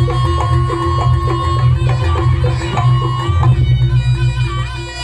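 Jaranan gamelan accompaniment: drums keep a steady beat under repeated pitched percussion notes, while a reedy wind instrument holds long melody notes.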